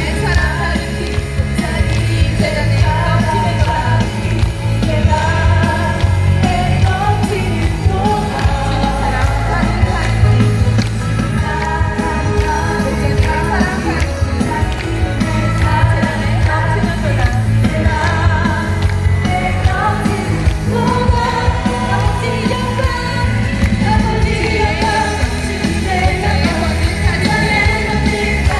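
Live music with singing, played loudly through outdoor stage loudspeakers: a sung melody over a steady, heavy bass.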